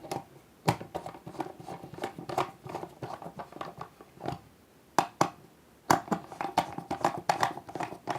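Plastic light fixture being screwed down by hand: irregular clicks, taps and scrapes of screws and plastic parts, several a second, with a few louder knocks about a second in and again around five and six seconds in.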